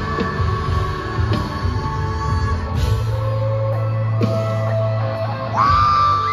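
Live rock band playing loud through the PA: electric guitar with long held notes over bass and drums. Near the end a louder held guitar note bends in pitch.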